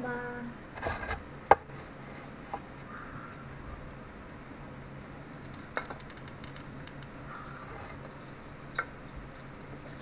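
Handling of a hot glue gun against a styrofoam ice box lid: a sharp click about a second and a half in, then a few lighter scattered clicks and taps, over a faint steady low hum.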